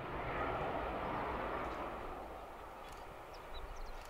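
Lockheed Martin F-35A's F135 turbofan jet engine noise as the fighter lands, a steady rushing rumble that fades away.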